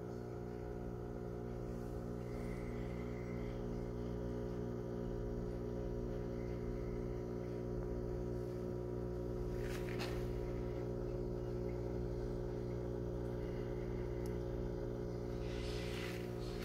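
Steady hum of a reef aquarium's pumps: a drone of many fixed tones with a faint regular pulsing in it, and a couple of faint clicks.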